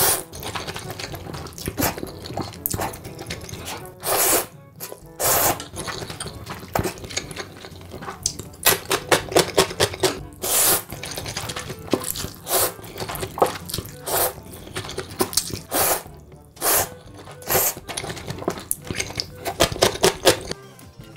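Close-miked eating: slurping and chewing of big mouthfuls, in irregular bursts, some quick and some about half a second long.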